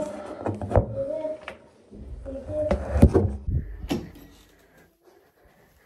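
A few sharp knocks and bumps among a person's low voice, as someone shifts about in a cramped hiding place; it goes quiet near the end.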